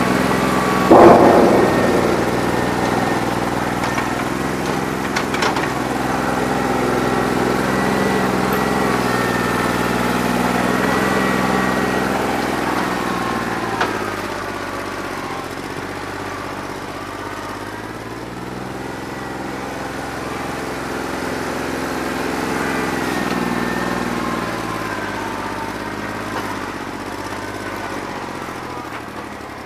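New Holland 1320 tractor's diesel engine running with a bad injector, its speed rising and falling, with a loud knock about a second in. The engine sound fades near the end.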